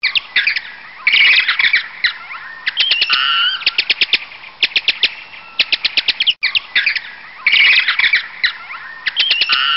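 Birds calling: loud, rapid series of sharp chirps and short trills. The calls break off for an instant about six and a half seconds in, then carry on.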